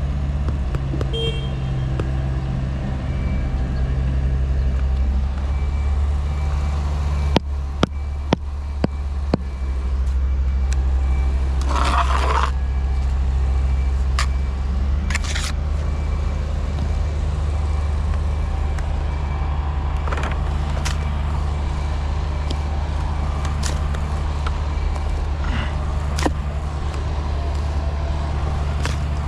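A steady low engine or motor drone, with four sharp knocks close together about a third of the way in and scattered clicks and scrapes after.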